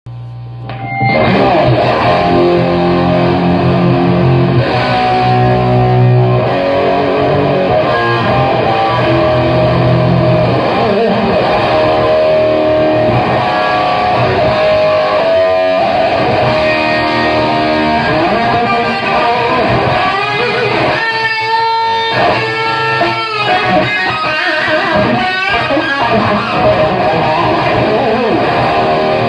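Gibson Les Paul Classic electric guitar played through a Laney AOR 50 Series 2 valve amp, with a Digitech Bad Monkey overdrive and an MXR Black Label chorus. It starts about a second in with held, ringing chords, then moves into faster single-note lines.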